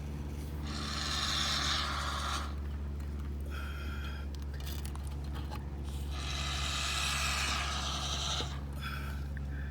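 Can of Loctite expanding foam hissing as foam is squirted through its straw under a roof tile, in two spurts of about two seconds each, one about a second in and one about six seconds in, with a few short scraping noises between.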